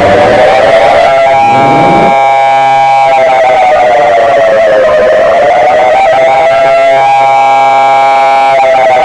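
Very loud, distorted siren-style emergency alert alarm tone, its pitch slowly rising and falling. A harsher layer of steady tones joins twice, about a second and a half in and again near the end.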